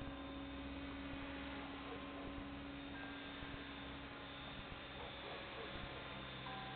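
Thunder Tiger Raptor E700 electric RC helicopter in flight at a distance, its rotors and motor making a faint, steady hum.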